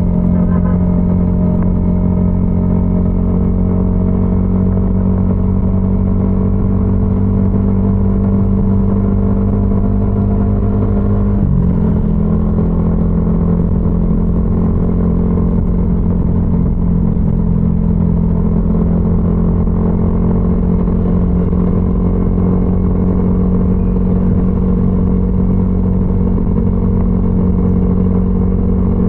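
Yamaha XSR155's single-cylinder engine through a DIY exhaust, running steadily while riding. Its note rises slowly over the first ten seconds, breaks briefly about eleven seconds in, then holds steady.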